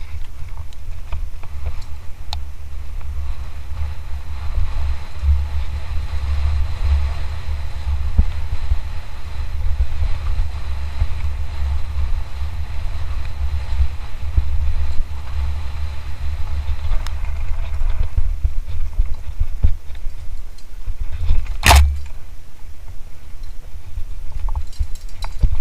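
Wind buffeting a camera microphone on a mountain bike during a fast descent, heard as a heavy, fluctuating low rumble. A faint steady high whine runs through the middle, and there is one sharp knock about 22 seconds in.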